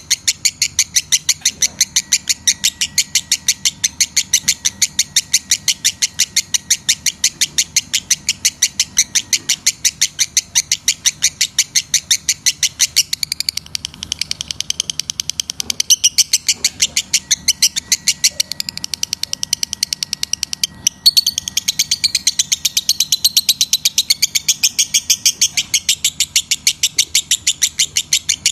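Lovebird giving a long run of sharp, high chirps, about four a second, that turns into denser, irregular chatter in the second half.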